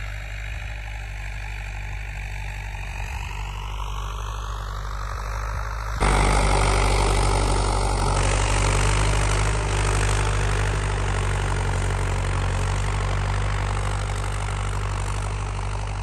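Tractor engine running steadily as it pulls a disc harrow through ploughed soil. It sounds fainter and farther off for the first six seconds, then suddenly louder and closer.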